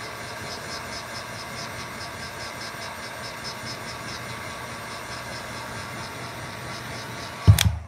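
Electric heat gun running steadily, its fan blowing hot air to dry fresh spray paint and clear coat. It cuts off near the end with a loud knock.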